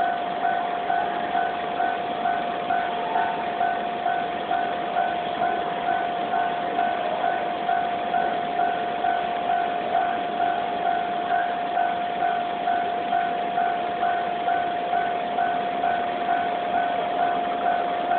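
Japanese railway level-crossing warning bell ringing, a steady electronic ding repeating about twice a second.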